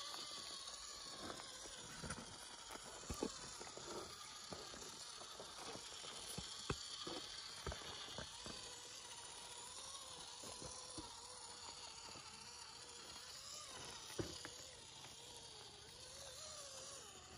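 Axial SCX24 micro RC crawler's small electric motor and gears whining, the pitch wandering as the throttle changes, while its tyres grind over loose shale and rocks click and clatter under it. A few sharper knocks stand out, about three, seven and fourteen seconds in.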